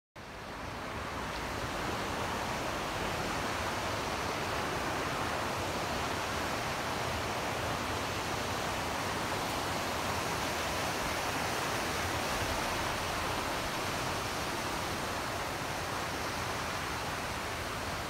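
Steady rushing road and tyre noise of a car driving, fading in over the first second or two and then holding level.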